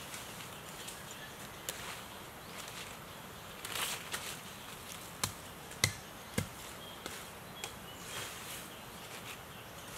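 Three sharp knocks about half a second apart, after a brief rustle, with faint chirps in the background.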